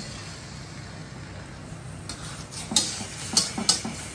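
A metal fork stirring cubes of pork belly in a metal wok, clinking and scraping against the pan several times in the second half.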